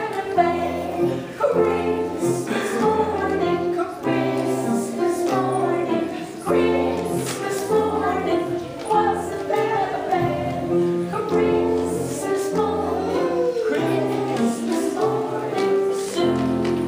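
A group of young children singing a song together over instrumental accompaniment, with a bass line that moves in steady held notes.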